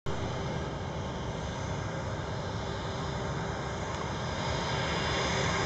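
Airbus A319 airliner's jet engines running as it moves down the runway for takeoff: a steady rumbling roar with faint steady tones, growing slightly louder toward the end.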